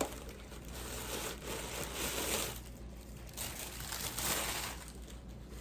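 Packaging crinkling and rustling as it is handled, in a few uneven swells.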